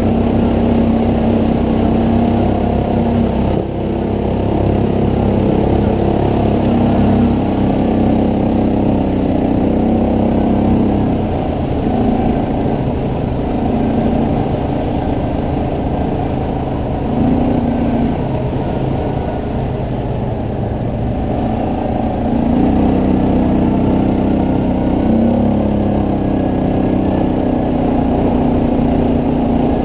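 ATV engine running under way, its pitch rising and falling and stepping up and down as the throttle is worked.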